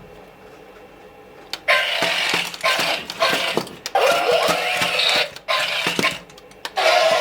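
Remote-controlled robot dragon toy going through its sound and motion effects: a click about one and a half seconds in, then loud noisy sound in stretches of one to two seconds with short breaks between.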